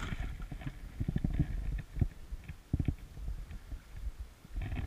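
Shallow water sloshing around a plastic sit-on-top kayak hull, with several dull, low knocks spread through it.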